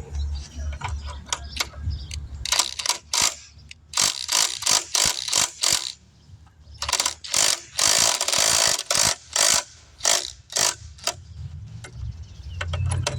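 Ratchet clicking in runs of quick strokes with short pauses, as a motorcycle jack is let down.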